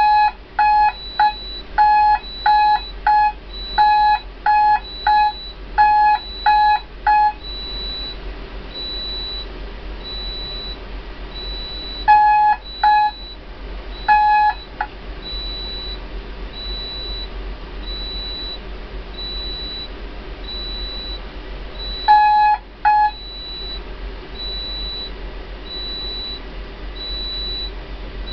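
The alarm buzzer of a ship's emergency generator alarm panel beeps rapidly in pairs for about seven seconds during a safety alarm test, then sounds three short beep groups later on. A fainter, higher pip repeats about once a second throughout, over a steady machinery hum.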